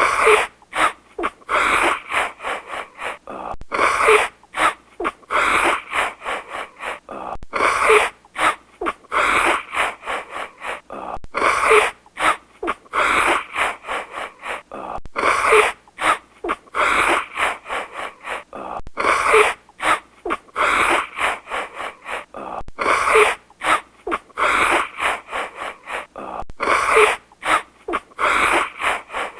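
Stock sound effect looped about every four seconds: each loop is a run of short, rapid noisy bursts with brief gaps between them.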